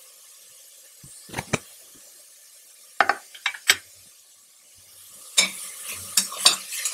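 A cooking utensil stirring and tapping against a pan of sautéing capsicum and mushrooms, over a faint sizzle. Two sharp clinks come about a second and a half in, a few more around three seconds, and a run of scrapes and taps near the end.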